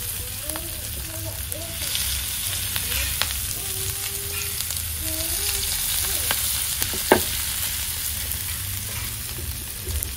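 Marinated mutton chops sizzling in hot oil on a flat tawa griddle: a steady frying hiss with scattered faint crackles and one sharp pop about seven seconds in.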